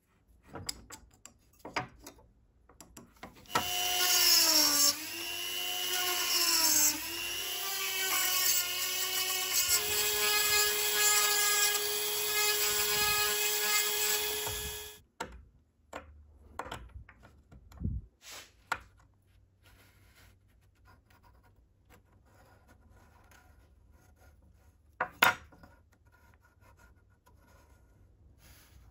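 Handheld rotary tool running with a small bit cutting into a wooden knife handle: its motor pitch dips and recovers several times as the bit bites, then holds steady, and it stops suddenly about fifteen seconds in. Light clicks and knocks before and after, one sharper near the end.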